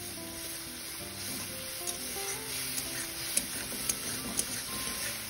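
Mustard-and-poppy-seed curry sauce sizzling and bubbling in a metal kadai while a metal spatula stirs it, with several sharp clicks of the spatula against the pan. Soft background music plays underneath.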